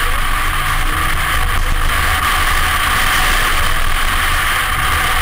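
Toyota FJ Cruiser's supercharged 4.0-litre V6 running steadily as the truck drives along a dirt trail: a constant low drone under an even hiss.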